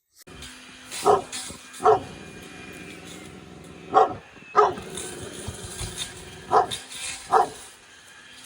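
Dog barking: six short barks, in three pairs, over a steady background noise.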